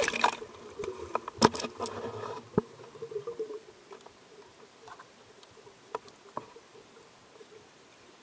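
Underwater sound heard through a diving camera's housing: water sloshing and bubbling with a few sharp knocks in the first two to three seconds, then a faint steady hum with scattered small clicks.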